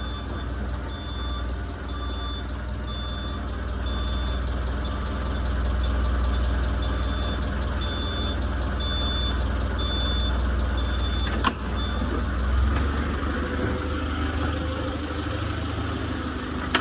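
Forklift engine running steadily under load, with its reversing alarm beeping at a steady rate as it is moved. A single sharp knock about eleven and a half seconds in.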